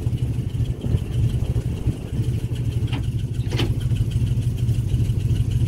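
Engine idling steadily, with a brief sharp sound a little past halfway.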